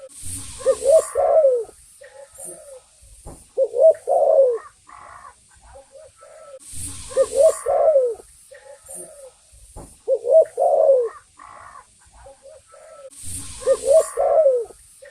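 Spotted dove (tekukur) cooing: a short phrase of low coos repeated about every three seconds, five times in all. A brief rushing noise comes just before three of the phrases.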